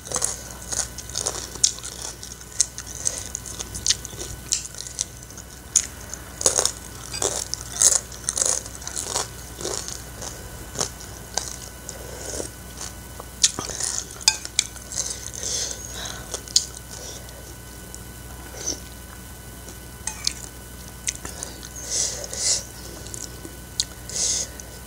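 Close-up eating sounds: crisp crunching and chewing of fried spinach crisps, with a metal spoon and fork clinking against a ceramic bowl. The sharp crackles come thickly in the first half and thin out later.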